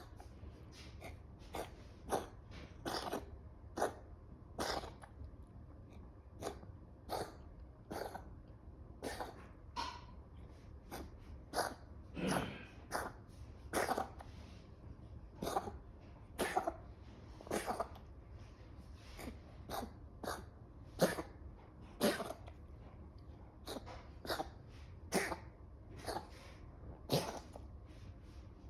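Repeated short coughs, about one a second and at uneven intervals, some coming in quick pairs, over a steady low hum.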